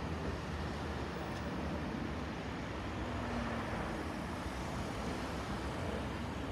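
Twin jet engines of a Boeing 767-300 freighter flying over, heard as a steady, deep rumble with a hiss above it.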